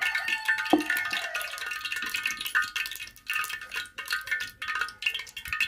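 Oil heating in a pot over a wood fire, with continual small crackles and pops and faint high ringing tones over them.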